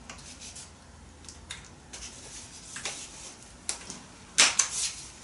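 Pressure washer hose and quick-connect fitting being handled: the hose rubbing and scraping, with a few light clicks of the fitting and a louder cluster of clicks near the end.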